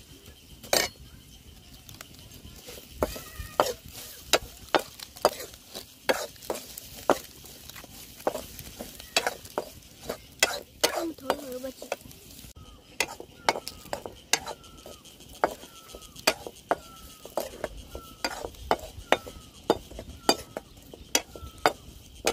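A metal ladle stirs and scrapes in a kadhai of onions and tomatoes frying in oil over a wood fire, making irregular clinks and scrapes over a low sizzle.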